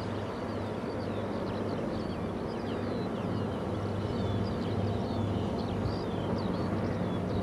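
Many small birds chirping and twittering in quick short, gliding notes, over a low steady machine hum.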